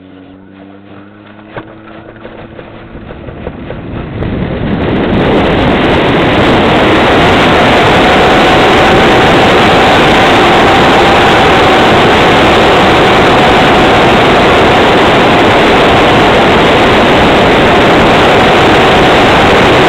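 Wind rushing over the onboard camera's microphone of a Grunau Baby model glider on aerotow, building over the first five seconds or so as it gathers speed and lifts off, then loud and steady. At the start the tow plane's engine is faintly heard rising in pitch.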